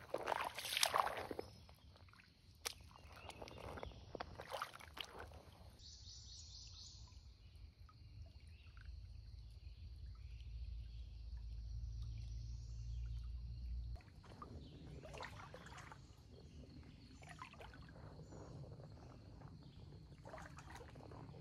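Faint shallow creek water with a few splashes and sloshes, most of them in the first few seconds, and a low rumble in the middle that cuts off abruptly.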